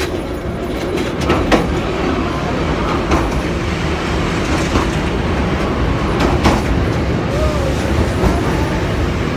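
Passenger train carriage running along the track, a steady rumble with sharp clicks of the wheels over rail joints every second or so. It grows a little louder about a second in as the train enters a tunnel.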